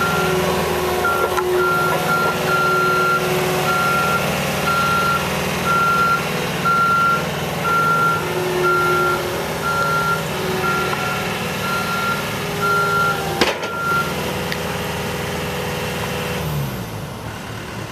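Skid steer loader's engine running steadily with its backup alarm beeping about once a second. The beeping stops about fourteen seconds in, just after a sharp clank, and near the end the engine throttles down.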